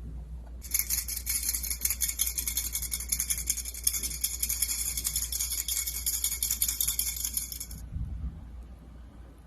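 Fast, continuous metallic rattling and scraping of a kitchen utensil worked against a container, lasting about seven seconds and stopping suddenly.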